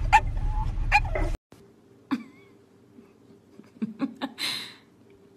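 A dog gives two short barks over the steady low rumble of a car's cabin. About a second and a half in, the sound cuts to a quiet room with a few soft ticks and a short breathy hiss.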